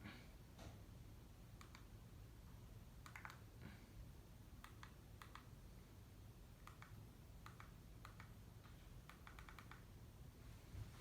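Harbor Breeze two-blade ceiling fan running, heard as a faint low hum with light, irregular clicks.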